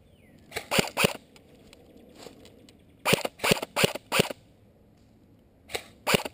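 Echo1 SG-1 airsoft electric rifle firing single shots, each a sharp crack: three quick shots about half a second in, four more in the middle, and two near the end.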